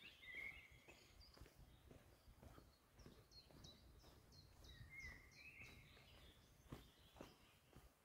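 Faint birdsong in woodland: a short warbling call near the start and again about five seconds in, and a run of short, high, falling notes in the middle. Soft footsteps on a forest path sound underneath, two of them more distinct near the end.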